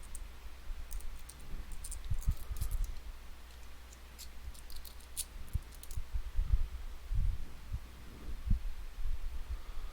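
Faint, scattered small metallic clicks with irregular soft low handling bumps: a key being worked in a partly disassembled UrbanAlps Stealth Key lever lock, moving its levers.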